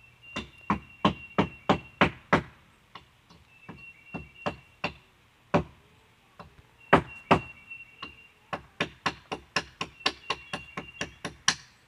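Hammer striking a small geode held on a wooden deck railing, a run of sharp knocks, some followed by a brief metallic ring. A quick cluster of blows at the start, a few scattered ones, then a faster run of about three blows a second near the end.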